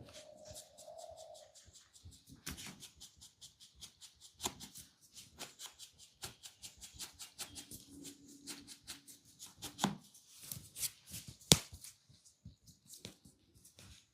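Fingers scratching and rubbing through hair on the scalp during a head massage: a dense run of quick, crisp scratching sounds, with one sharp crack near the end.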